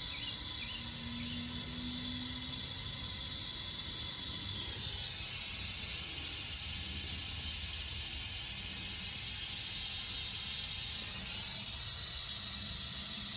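Steady hiss of low-pressure compressed air, about 5 psi, flowing through a homemade smoke tester to push smoke into an engine's vacuum system during a smoke test for vacuum leaks.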